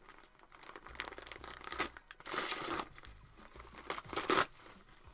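Parcel packaging being torn open and crinkled by hand: several short bursts of rustling and tearing, the longest about two and a half seconds in and the loudest about four seconds in.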